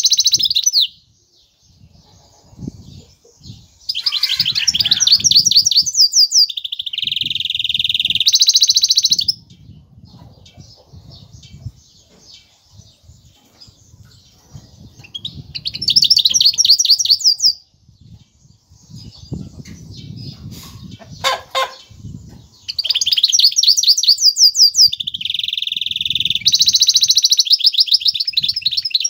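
Caged goldfinch hybrid (mule) singing: phrases of rapid, high trills mixed with held buzzy notes, broken by pauses of several seconds.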